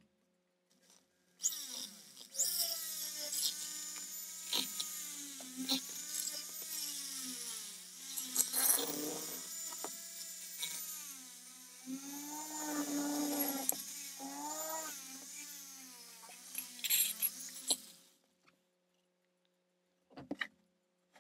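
Handheld rotary tool spinning a small wire wheel, scrubbing paint and crusted grime out of the grooves between the cooling fins of a Thomas 600-8 airbrush compressor's metal housing. Its high whine dips and rises in pitch as the wheel bites and lets off, stops about 18 seconds in, and a couple of light knocks follow near the end.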